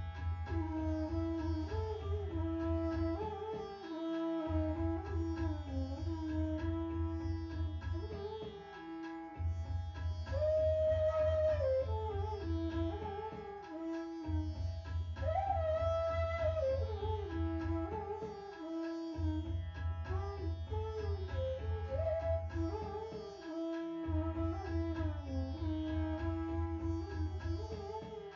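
Instrumental background music: a melody that bends and glides between notes over steady held drone tones. A low pulsing bass drops out briefly about every five seconds.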